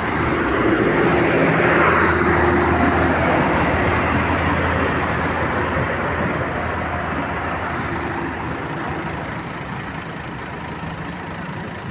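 A heavy road vehicle passes close by, its engine giving a low steady hum under tyre and road noise. The noise swells over the first two seconds and then slowly fades as it moves away.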